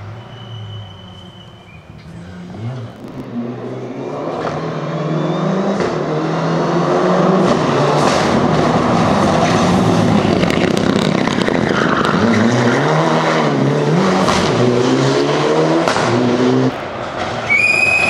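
Rally cars at full throttle. At first a car fades away; then, loudest, a Mitsubishi Lancer Evolution VI's turbocharged four-cylinder revs hard through several gear changes, its pitch climbing and dropping at each shift, with a few sharp pops. It cuts off abruptly near the end, followed by a brief high squeal.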